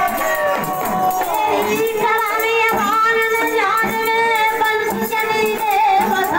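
Bundeli gote folk singing: a high voice holding long, wavering sung notes over a steady hand-drum rhythm and jingling percussion.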